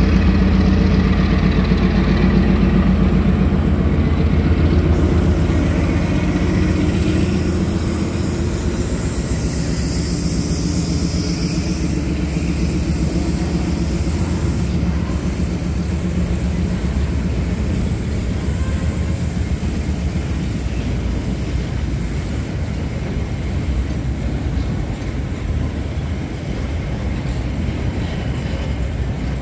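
CRRC Qishuyan CDD5A1 diesel-electric locomotive passing close by, its engine drone fading over the first several seconds. After that, a train of empty coal wagons rolls past with a steady noise of wheels on rails.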